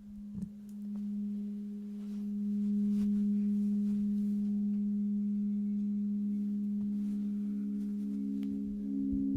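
Singing bowls ringing in long steady tones, several pitches sounding together and building louder over the first few seconds, with another tone swelling in about two-thirds of the way through.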